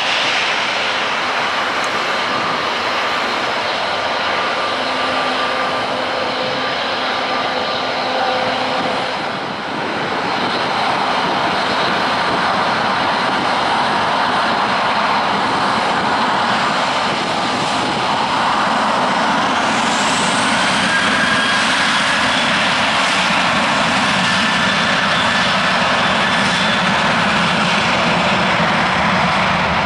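Boeing 737-800's CFM56-7B turbofan engines running as the jet taxies: a steady jet rumble with a whine over it. About two-thirds of the way through, the whine rises a little in pitch.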